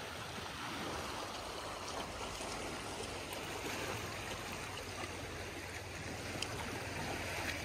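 Small sea waves washing steadily over a rocky shore, a continuous splashing wash with faint clicks of water on stone.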